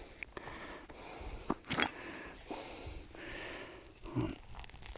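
Hand trowel digging into field soil: soft scraping and crumbling of earth, with a couple of short, sharper scrapes just under two seconds in.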